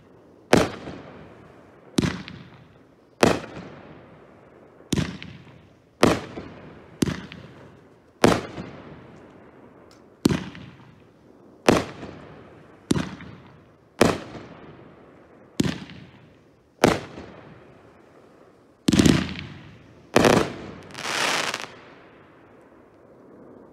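A 500 g, 25-shot firework cake firing its aerial shells. There are about fifteen sharp bangs, one every second or so, each trailing off in a rolling echo. Near the end come two quick bangs and then a second or two of crackling from the brocade crown finale.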